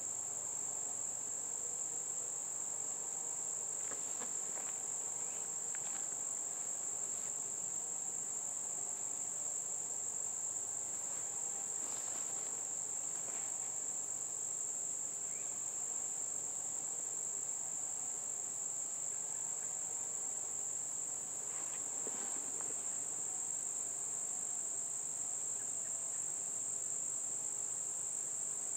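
Steady, high-pitched chorus of singing insects, one continuous shrill tone that never breaks.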